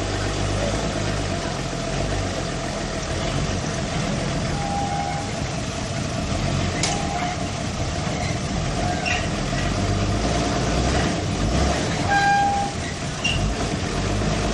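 Forklift engine running steadily while it carries and sets down another forklift, with a few short high squeaks and light clicks over the engine noise.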